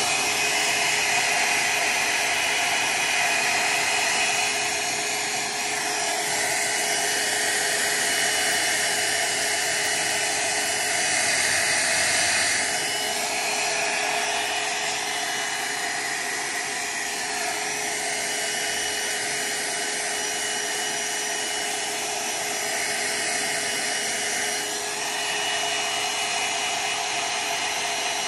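Electric hair dryer running steadily on high, its whoosh changing slightly in tone every few seconds; it is being used to dry a wet watercolour wash.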